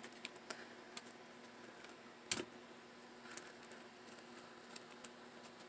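Hands handling a satin ribbon rose, pressing a freshly glued petal in place: scattered faint ticks and soft clicks of fingers and fingernails on the satin, one slightly louder click about two seconds in.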